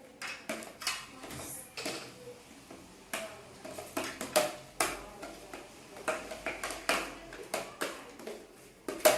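Irregular sharp clicks and taps, roughly two or three a second, from slime ingredients being handled and mixed in a container.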